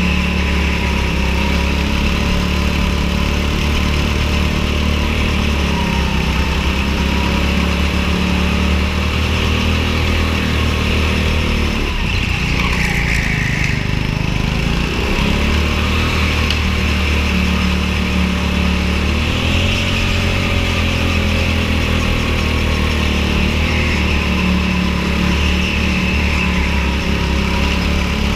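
Go-kart engine running steadily at high revs, its pitch dipping and recovering several times, most deeply about twelve seconds in.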